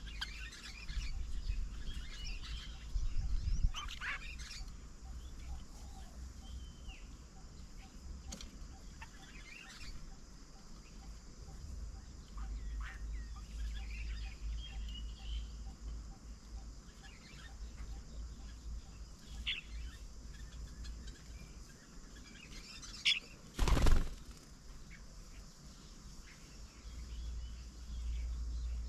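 Assorted birds chirping and calling in short scattered notes around a garden bird table, with wings flapping. One loud, brief burst of noise near the end stands out above the calls.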